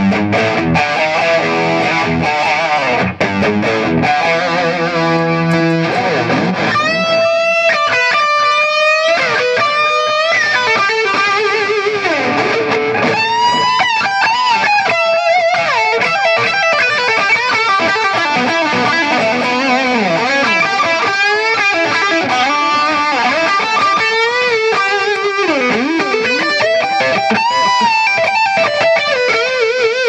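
Gibson Les Paul Traditional Pro electric guitar played through a Mesa/Boogie Triaxis preamp, 20/20 power amp and Rectifier cabinet: chords for the first several seconds, then single-note lead lines with bends and wide vibrato.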